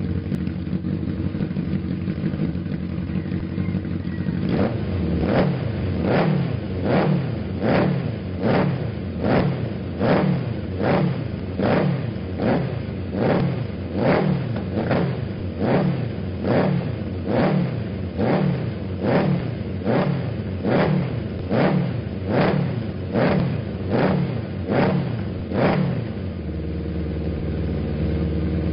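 Honda CB750 DOHC air-cooled inline-four running through a BCR 4-into-4 stainless exhaust: it idles steadily, then is blipped over and over, more than twenty quick revs a little more than one a second, each rising and falling back, before settling to idle again near the end.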